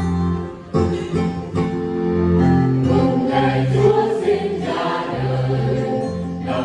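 Church choir singing a Christmas song, with guitar in the accompaniment.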